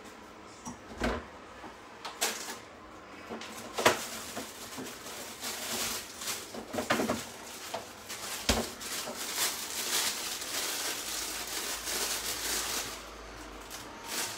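Kitchen handling sounds: a few sharp knocks and clicks, the loudest about four seconds in, then a longer stretch of hissing noise mixed with small clatters that stops shortly before the end.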